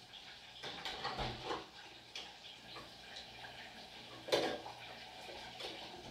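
Kitchen clatter: dishes and utensils being handled, a series of light clicks and knocks with one sharper knock about four seconds in.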